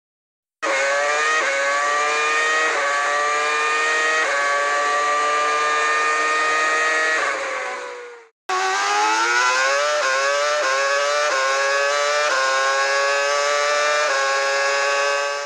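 Naturally aspirated V8 Formula 1 engines at high revs, accelerating hard through the gears. The pitch climbs and drops back at each quick upshift, about every second. One older V8-era car runs for about seven seconds and fades out; after a brief gap, a 2010 Renault R30's 2.4-litre V8 pulls through the gears in the same way.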